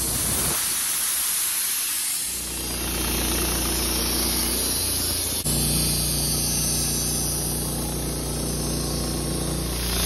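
Wood-Mizer LT15 band sawmill running, its engine humming steadily while the band blade saws through a Douglas fir log, with a hiss of cutting over the engine. The engine's low hum drops away for about two seconds near the start, then returns.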